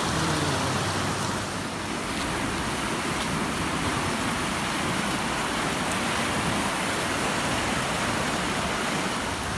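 Steady rushing of swollen floodwater from an overflowing irrigation canal pouring over a bridge. A faint low hum sits under it for the first couple of seconds.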